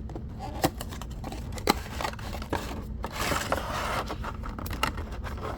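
Small earbud box being opened and its contents handled: scattered light clicks and taps, and a stretch of scraping and rustling about three seconds in.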